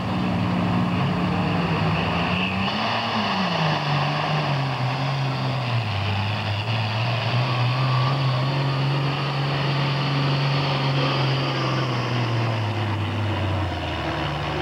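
Super farm class pulling tractor's diesel engine running hard under load down the track. Its pitch rises briefly about three seconds in, then drops and holds lower as the sled pulls it down, and sags further near the end of the run.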